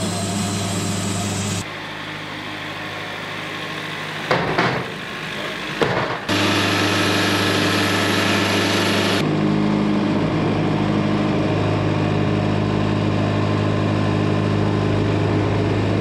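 Portable band sawmill running, its engine humming steadily while the blade and debarker cut through a log. The sound changes abruptly three times, with a couple of knocks a little before halfway.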